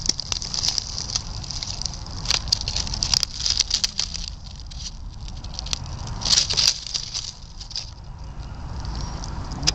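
Dry leaf litter rustling and crackling in irregular bursts as a wild mouse and a hand stir through it, loudest in a few short spells.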